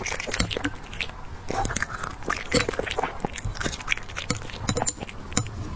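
A small dog chewing and licking soft dumplings fed from chopsticks, close up: a run of irregular wet smacks and mouth clicks.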